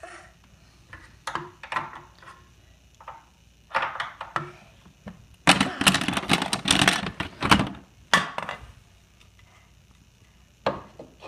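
Irregular knocks and taps of a plastic toy tool on a wooden table, with a quick run of rapid knocking about halfway through.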